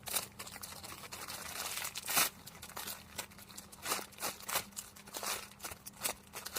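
A foam squishy toy being handled and squeezed close to the microphone: irregular soft rustling and crinkling, with one louder crackle about two seconds in.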